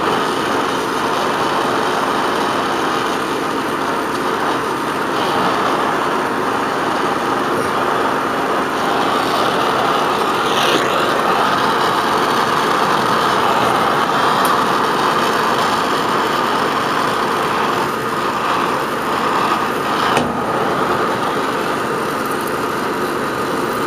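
Steady hiss of a brazing torch flame heating a copper refrigerant line joint.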